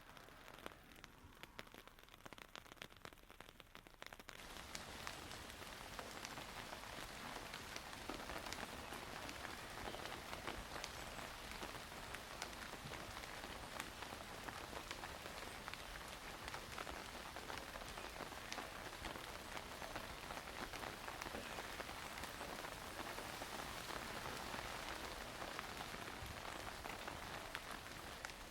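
Rain falling steadily, a dense hiss made of countless individual drop impacts. About four seconds in it suddenly becomes louder and denser.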